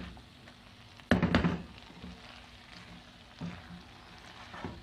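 Spatula stirring cooked chicken liver and gizzards in a nonstick wok, knocking and scraping against the pan a few times, loudest in a short cluster about a second in.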